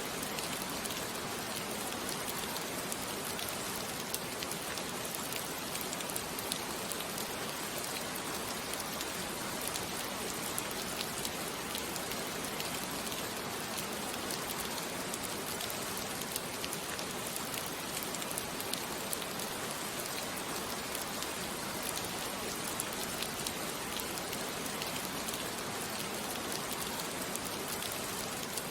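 Steady rain falling: a dense, even hiss with scattered drop ticks.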